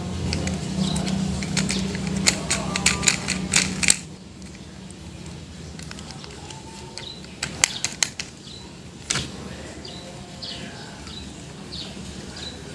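A run of sharp clicks and taps over a steady low hum that stops about four seconds in. After that the clicks come more sparsely, with faint bird chirps near the end.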